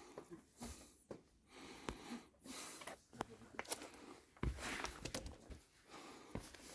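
A hiker's breathing while walking: soft puffs of breath about once a second, with scattered taps and clicks of footsteps.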